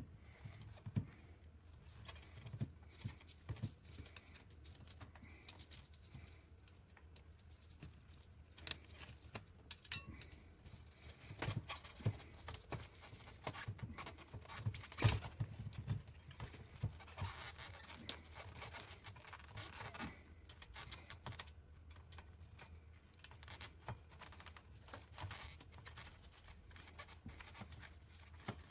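Faint, irregular clicks, taps and scraping of hands working a rubber wheelchair tyre and its wheel rim, with a few sharper knocks.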